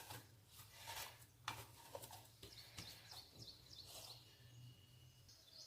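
Near silence: faint soft sounds of hands kneading a potato and semolina dough, with a few faint bird chirps in the background.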